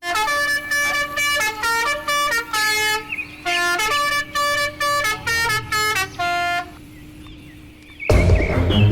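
A musical horn honking a tune of about a dozen short notes at changing pitches over a steady low hum, stopping near seven seconds; loud music starts near the end.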